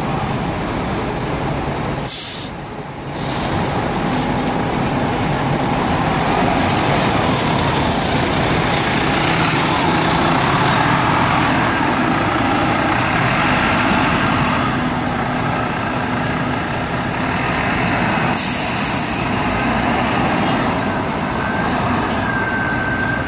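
Dense traffic at a busy city intersection: engines of trucks, buses and cars running with a steady wash of road noise. A short sharp hiss comes about two seconds in and a longer high hiss later, and a brief squeal near the end.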